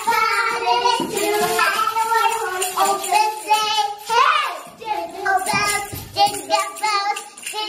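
Young girls singing loudly in high voices, one voice sliding up and back down about four seconds in.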